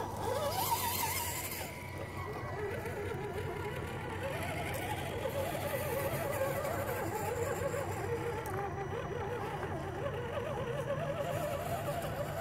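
Scale RC crawler trucks' electric motors and drivetrain gears whining as they crawl over a rocky, leaf-covered trail. The whine wavers up and down in pitch as the throttle and load change.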